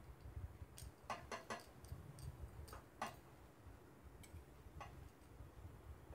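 Faint, light clicks of a steel fork and spoon tapping against a wire roasting mesh as charred tomatoes are turned over a gas burner. The clicks come irregularly, bunched in the first half with a couple more later.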